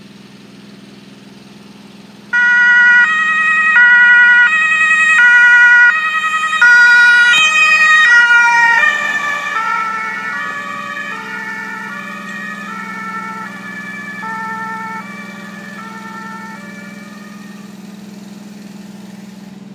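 German two-tone emergency siren (Martinshorn) on a fire brigade car, switching on abruptly and alternating between two notes as it drives past. Its pitch drops as the car passes, and it fades away into the distance over a steady low hum.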